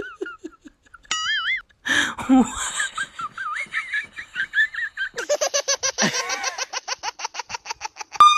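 Comedic laughter sound effects: a short warbling giggle, then wavy laughing, then a fast, even run of laughs for about three seconds.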